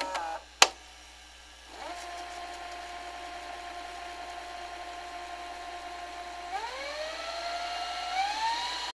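Tape-rewind sound effect: a click, then a steady whining tone from about two seconds in that rises in pitch over the last couple of seconds and cuts off suddenly.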